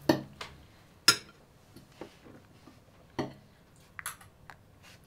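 Cutlery clinking on dinner plates during a meal: a handful of sharp clinks spread a second or so apart, the loudest about a second in.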